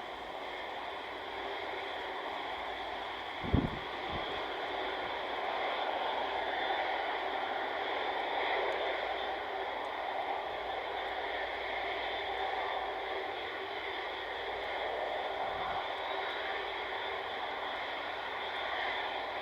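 Airbus A330's jet engines running steadily, a wide rushing noise with several high whining tones held throughout. A brief low thump about three and a half seconds in.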